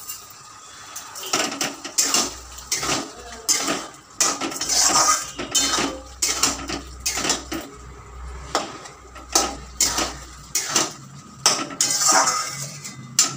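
Metal spatula scraping and clinking against a steel kadai as a thick curry is stirred, in repeated strokes of about two a second that begin about a second in.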